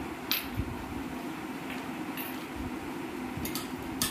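Steady hum of a room fan, with a few short, sharp clicks and taps as a roll of paper tape and a pair of scissors are handled on a glass tabletop; the loudest clicks come about a third of a second in and near the end.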